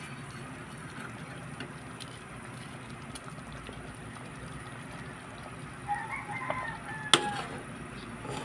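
A rooster crows once, for about a second and a half, a little after halfway through, over a steady low background hum. A single sharp click, the loudest sound, cuts in near the end of the crow.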